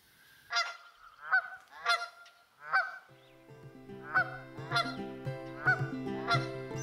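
Canada goose honking, a series of about eight short honks spaced a little under a second apart. Background music comes in about three seconds in.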